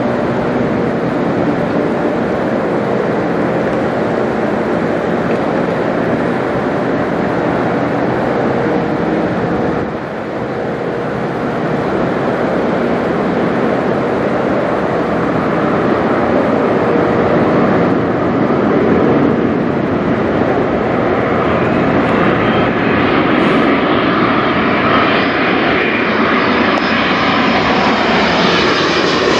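Jet engines of a Boeing 787-8 Dreamliner passing low overhead: a steady rush that grows louder and brighter over the second half, with wind on the microphone.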